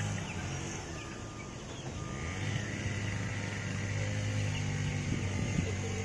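Farmyard ambience of gamefowl chickens calling, with scattered short bird calls over a steady low hum.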